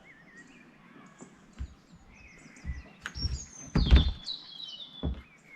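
Birds chirping, with a cluster of knocks and thuds about three to four seconds in and one more near the end.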